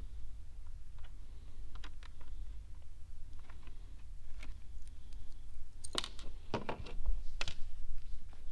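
Scattered small clicks and taps of hands working on plastic dashboard trim and fasteners, with a cluster of louder knocks about six to seven and a half seconds in.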